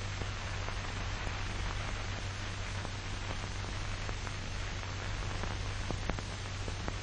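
Steady hiss and low hum of an old film soundtrack, with faint scattered crackles.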